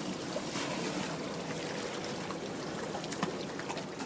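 Sea water rushing and splashing against a fishing boat, steady, with a couple of light knocks.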